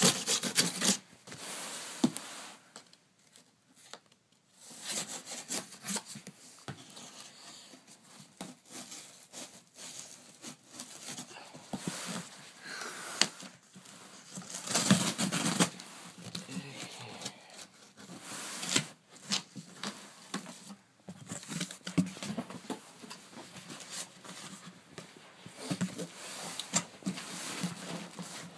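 A large cardboard shipping box being opened by hand: tape and paper tearing and packing material crinkling in irregular bursts, with scattered sharp knocks and clicks.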